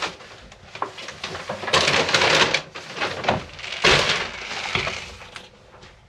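Paper shopping bags rustling and being set down on the floor, then a sharp clunk from an inner glass-panelled door being pulled open by its handle about four seconds in.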